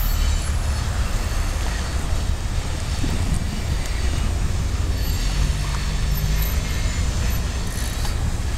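Steady low rumble of a freight train of covered hopper cars rolling away down the track.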